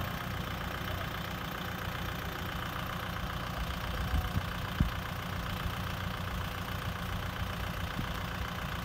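Kubota M6040SU tractor's diesel engine running steadily as it hauls a trailer loaded with rice sacks through deep mud. One sharp thump about five seconds in.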